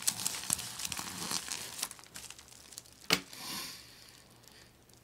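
Mailing package crinkling and crackling as it is handled and pulled open, dense for the first couple of seconds, with one sharp snap about three seconds in and quieter rustling after.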